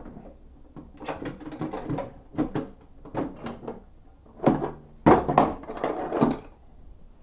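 Metal hand tools clattering and scraping as they are rummaged out by hand, an irregular run of quick clinks, with the loudest ones about five seconds in.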